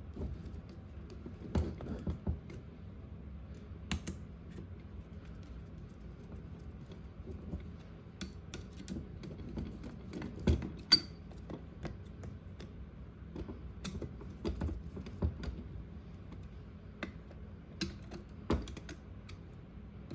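Small metal carburetor parts and hand tools clicking and tapping as a Ford Motorcraft 2150 carburetor's accelerator pump linkage is fitted and tightened: irregular light clicks, with a sharper knock about eleven seconds in.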